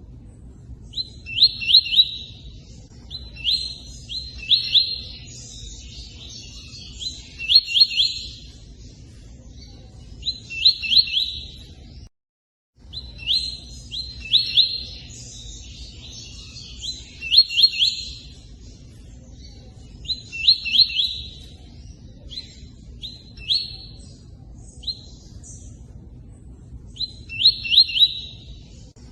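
Tui-tui bird song: short bursts of quick, high chirping notes repeated every few seconds with gaps between, over a steady low rush of running water. All sound drops out for about half a second around twelve seconds in.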